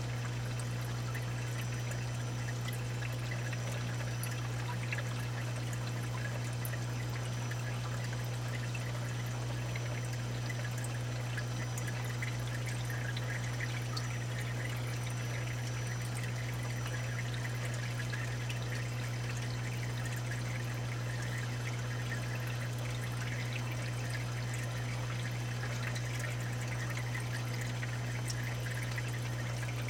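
Saltwater aquarium sump and refugium water flow: steady trickling and pouring of water over a steady low hum, with a few faint scattered ticks.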